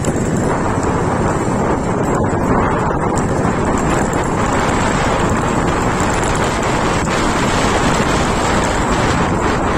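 Steady wind rush over the microphone, with the running noise of the road vehicle carrying it.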